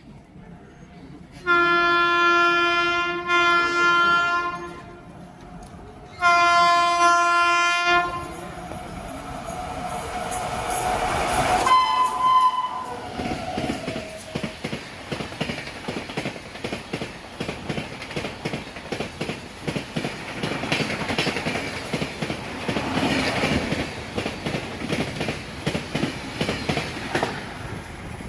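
A WAP-7 electric locomotive sounds its horn in three blasts, then the train rushes past at speed with a rising roar, its wheels clattering rhythmically over the rail joints as the coaches go by.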